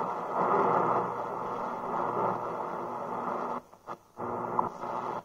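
Shortwave radio static hissing from the SuperSonic SC-3201BT boombox's speaker, muffled and narrow in range with a faint low hum under it. It cuts out for about half a second roughly three and a half seconds in, and again right at the end.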